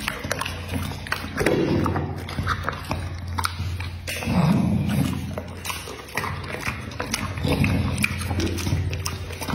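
A pit bull chewing a chunk of fruit with its mouth open: wet smacking and slurping, with short sharp clicks of teeth at an irregular pace, over a steady low hum.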